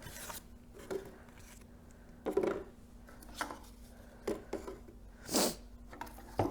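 Small clicks, taps and rustles of a speaker's plastic casing being handled and fitted back together. A louder scrape or snap comes about five seconds in, over a faint steady hum.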